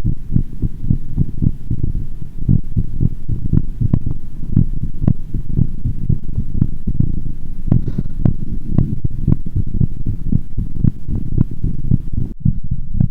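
A woman's heartbeat picked up by a microphone pressed against the skin: quick, repeating low thumps, fast after dancing and drinking.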